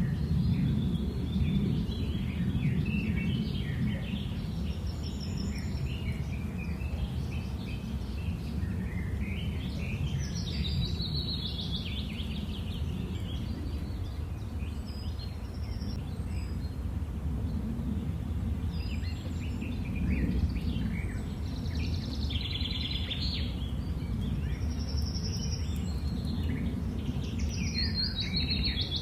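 Songbirds chirping and trilling on and off, over a steady low rumble of outdoor background noise.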